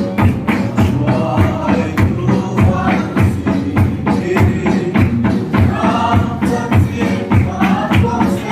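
Congregational worship music: a driving drum beat with bass and keyboard under group singing, the singing coming up more clearly in the second half.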